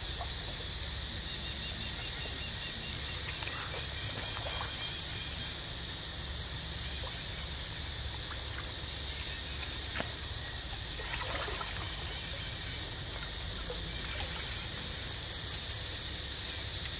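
Stream water trickling and splashing as monkeys swim and play in it, over a steady high insect drone, with a few sharp clicks.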